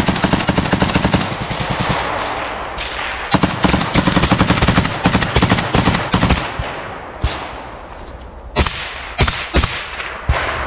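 Small-arms firefight at close range: rapid automatic bursts from an RPK light machine gun and other rifles, thinning after about seven seconds to scattered single shots.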